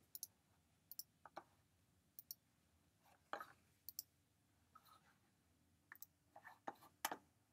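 Faint computer mouse clicks, about a dozen scattered short clicks, some in quick pairs, as modifier settings are picked in a 3D program.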